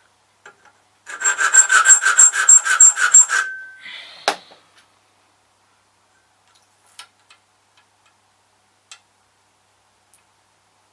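Metal hand file rasping across a key blank in quick, short strokes, cutting a key by hand, for a couple of seconds. A single sharp knock follows.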